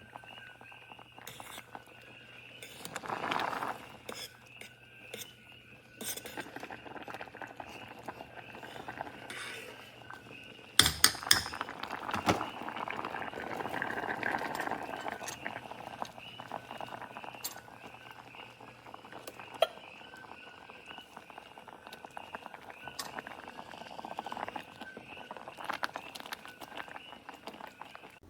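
Kitchenware clinking and knocking: glass, metal utensils and pots, with a cluster of sharp knocks about eleven to twelve seconds in.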